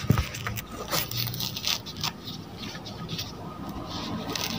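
Orange peel being pulled off the fruit by gloved hands: soft tearing and scraping with scattered small clicks.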